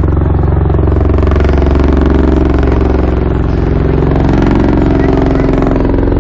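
Bell Boeing MV-22 Osprey tiltrotor in flight: the loud, steady sound of its two large prop-rotors and turboshaft engines, full of low pitched tones.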